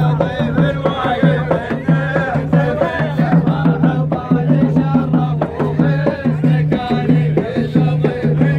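Traditional Emirati folk music of the ayyala cane-dance kind: a steady drum rhythm with voices over it.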